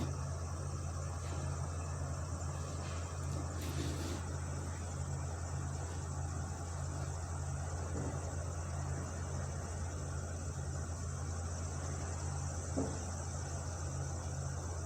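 Distant truck engine running: a steady low drone with a regular throb. A steady high hiss sits above it, and there is one light knock near the end.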